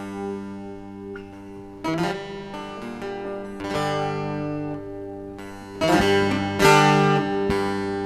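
Bağlama (saz), the Turkish long-necked lute, plucked in an instrumental passage of a Turkish folk lament over a steady low drone; the playing grows louder from about six seconds in.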